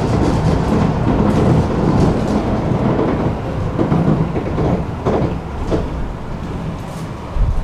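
Tram running on its rails: a steady, loud low rumble of wheels and running gear, with a few knocks around the middle and a thump near the end.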